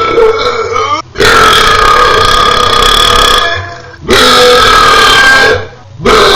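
A person belching loudly in a run of long, drawn-out belches. One ends about a second in, then three more follow, each lasting one to two seconds with short gaps between them.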